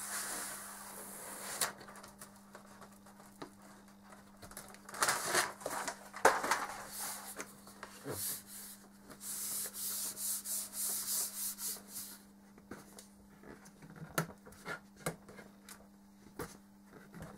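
A sheet of white foil being wrapped around a tube and rubbed smooth by hand: rustling and rubbing in spells of a second or two, about five seconds in and again from about nine to twelve seconds, with scattered clicks and taps of handling. A steady low hum runs underneath.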